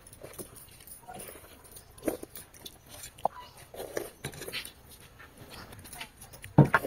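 Faint eating-by-hand sounds: chewing, lip smacks and fingers squishing watered rice (pakhala) on a plate, with a few light clicks. There is one louder sharp sound near the end.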